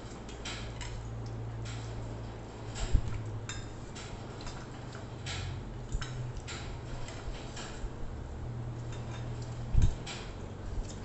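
Eating at a table: forks and spoons clicking irregularly against plates, with chewing, and two dull thumps, about three seconds in and near the end. A low steady hum runs underneath.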